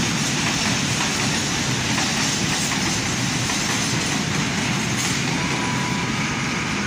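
Freight train passing at close range: open wagons' wheels clattering steadily over the rails, with the ST44 diesel locomotive's two-stroke V12 engine running as it comes alongside near the end. A faint, brief wheel squeal about five and a half seconds in.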